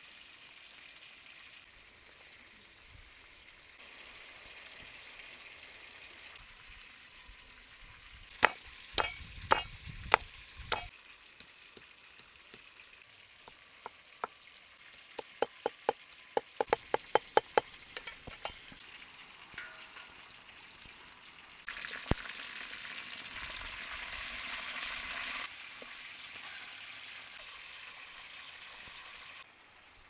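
A knife chopping garlic on a board: a few heavy chopping knocks, then a quick run of sharp knocks at about four a second. Later comes a loud sizzle of pork frying in hot oil in a wok, which stops suddenly.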